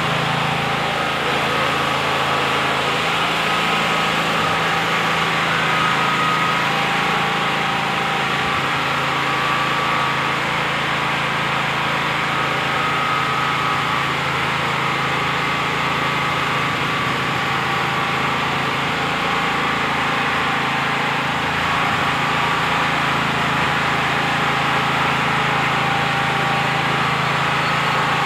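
A steady machine hum with an even hiss, unchanging throughout, like a motor or blower running.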